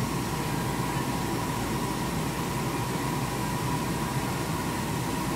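Machine tool running steadily with coolant spraying, giving an even hiss with a faint steady whine, as a finishing reamer trims a rifle chamber.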